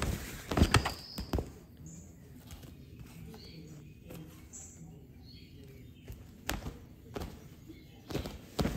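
A cat pouncing and scrambling inside a crinkly pop-up fabric play tunnel: short bursts of rustling and thumps, the loudest cluster about half a second to a second and a half in, and more near the end.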